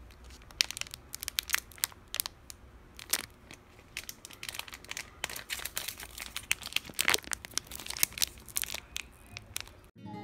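Plastic wrapper of an individually packed cookie crinkling and being torn open by hand, a rapid, irregular run of sharp crackles that cuts off near the end.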